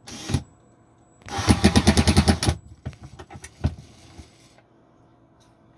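Cordless drill-driver run in short bursts to drive a fastener overhead: a brief spin at the start, then a louder burst of about a second and a half with a rapid, even pulsing, followed by a few fainter clicks.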